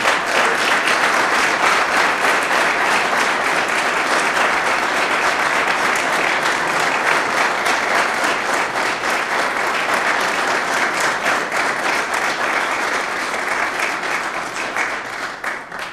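Audience applauding, many hands clapping steadily and then fading out near the end.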